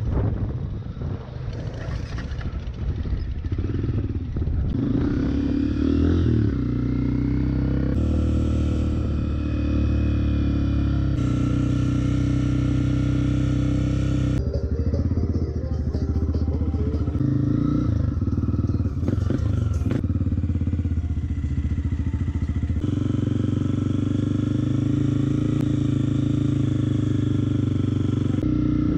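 Honda CRF250F dirt bike's single-cylinder four-stroke engine running under way on sand, its pitch rising and falling with throttle and gear changes. The sound jumps abruptly several times where clips are spliced together.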